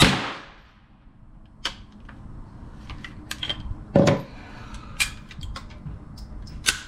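A .22LR shot from an AR-15 pistol fitted with a CMMG .22 conversion kit, then metallic clicks and clacks of the gun being handled. Another loud report comes about four seconds in. The kit is malfunctioning again and again.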